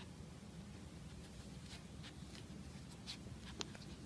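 A puppy's claws clicking lightly on a tile floor as it moves about: scattered faint ticks, with one sharper click near the end, over a low steady hum.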